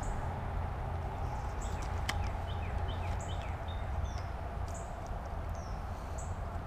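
Birds calling, a series of short, high notes that slide downward and repeat every half second or so, over a steady low background hum. A single sharp click sounds about two seconds in.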